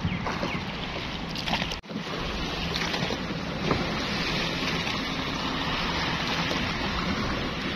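Long-tail boat motor running steadily, its shaft-mounted propeller churning the river water, with wind on the microphone. The sound drops out for an instant about two seconds in.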